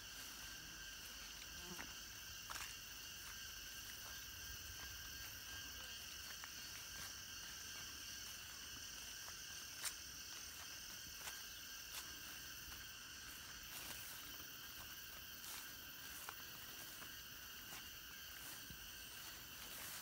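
Faint steady insect chorus, several high-pitched trills droning without a break, with scattered soft clicks and rustles of footsteps through grass and leaves; the sharpest click comes about halfway through.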